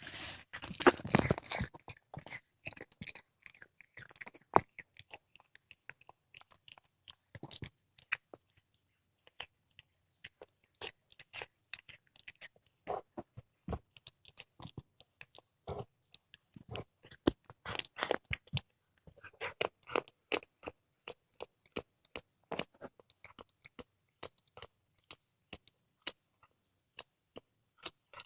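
A cat chewing and crunching through a squirrel's flesh and bones, in dense bites at first, then a scatter of wet clicks and crunches with a louder flurry past the halfway point.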